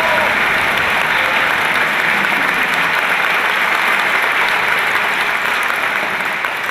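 Audience applauding steadily, the clapping slowly dying away near the end.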